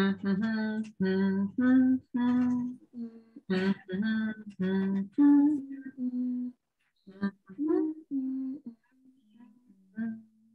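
A woman humming a simple tune in short held notes, the humming step of EFT tapping's nine-gamut procedure. The notes become sparser and quieter in the second half.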